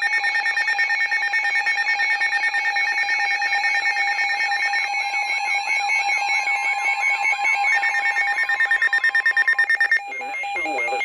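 Weather-radio emergency alert tones: several steady electronic tones sounding together with a fast pulsing beat. A further tone and a warbling sweep join in midway, then all of it cuts off sharply about ten seconds in. This is the alert that announces an incoming severe thunderstorm warning.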